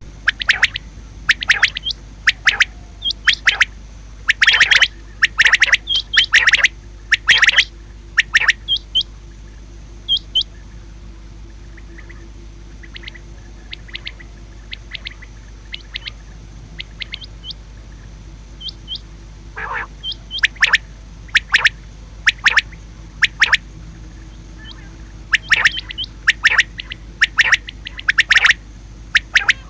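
Common quail calling: short, sharp calls repeated in quick runs, thick at first, sparser and fainter in the middle stretch, then thick again.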